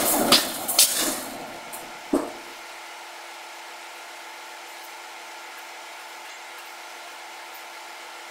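Power forging hammer striking a red-hot steel bar: several quick heavy blows in the first second and a last one about two seconds in. Then the hammer stops and only a steady machine hum remains.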